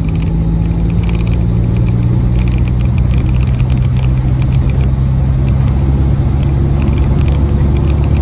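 Cabin sound of an MG Midget 1500 on the road: its 1.5-litre four-cylinder engine running steadily under tyre and road noise. Light rattles and ticks from the side window, where the camera is mounted, come through throughout.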